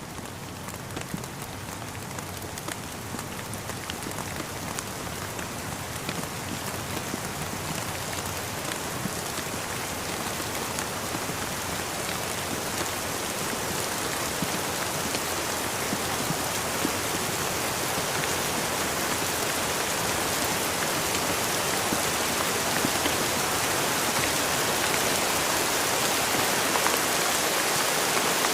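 Steady rain falling, with drops tapping on surfaces, growing gradually louder.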